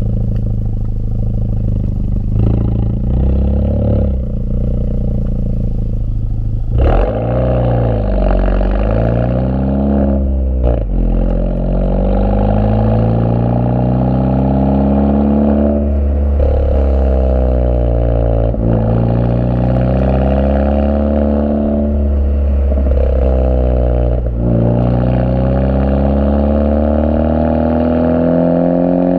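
Honda Civic FK2 Type R's turbocharged 2.0-litre four-cylinder heard at its modified twin-tip exhaust. It runs steadily at low revs, then pulls away about seven seconds in and accelerates through the gears, the note rising with each pull and dropping at each of several upshifts.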